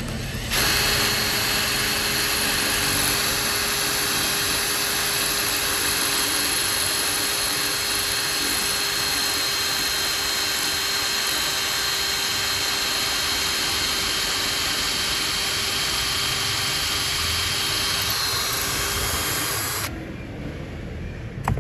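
Cordless drill with a spiral masonry bit boring into concrete, running steadily for about nineteen seconds before stopping near the end.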